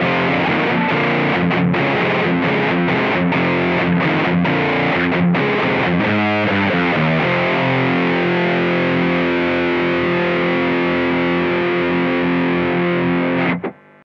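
Electric guitar through a NUX Plexi Crunch overdrive pedal, a Marshall-style crunch with preamp and tone at 12 o'clock. It plays a distorted riff of short choppy chords, then a quick run of notes about six seconds in, then a chord left ringing that cuts off abruptly near the end.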